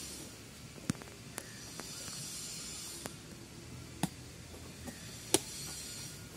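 Badminton rackets hitting a shuttlecock in a rally: sharp pings, the loudest about a second in, at four seconds and just past five seconds, with fainter ones between, over a steady hiss.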